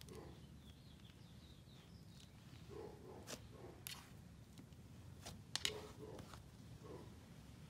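Faint squishing and crackling of cloud slime being pressed and squeezed by hand, with a few short sharp pops, the loudest about five and a half seconds in.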